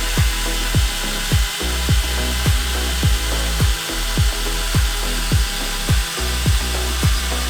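Background music with a steady thumping beat, about two and a half beats a second, over a steady hiss of metalworking tool noise.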